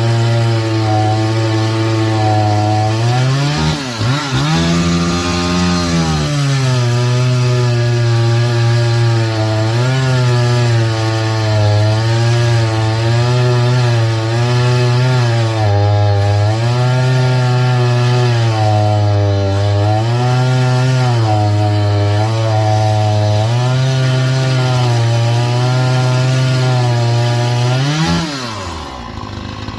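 Small Chinese-made two-stroke chainsaw cutting wood at full throttle, its engine note sagging under load and recovering over and over. About four seconds in the pitch dips sharply, briefly climbs higher, then settles back into the cut; near the end the pitch falls and the saw drops to a quieter note as the cut finishes.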